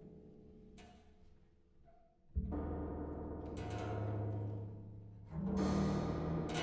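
Experimental contemporary music for an amplified trio of harp, double bass and tam-tam: quiet sustained harp notes, then a sudden deep struck sound a little over two seconds in that rings on, and a second loud swell with a bright hiss near the end.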